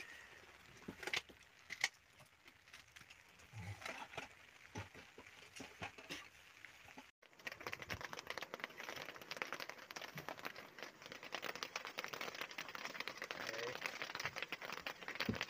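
Rain pattering on a fishing boat's canopy, a dense steady crackle that sets in after a brief cut about halfway through; before it there are only a few faint scattered clicks.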